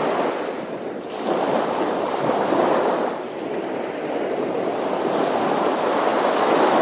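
A large shoal of fish leaping out of the water and dropping back, a dense, continuous splashing and churning across the surface that swells and eases.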